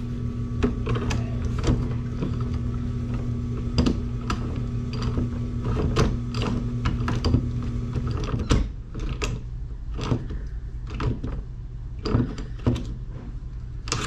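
Locking pliers clicking and scraping on a plastic hose fitting as it is tightened onto a pipe manifold, in many short irregular clicks. A steady machine hum runs underneath, and part of it stops about eight seconds in.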